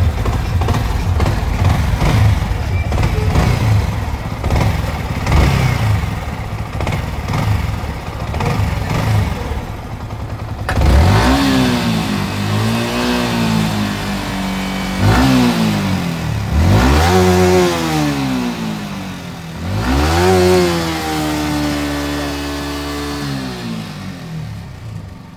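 Yamaha R15M BS6's 155 cc single-cylinder engine running with a clatter, then revved up and down about four times from roughly halfway through. The mechanic puts the noise down to a ruined chain kit and a worn timing chain.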